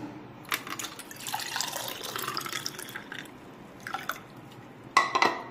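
Watermelon juice poured from a bowl into drinking glasses, splashing and trickling, with a few sharp knocks later on, the loudest near the end.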